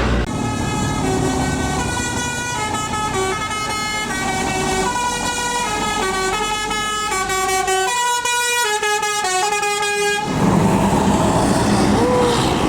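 Tour bus's telolet basuri horn playing a tune of single stepped notes for about ten seconds. It stops suddenly and gives way to engine and road noise.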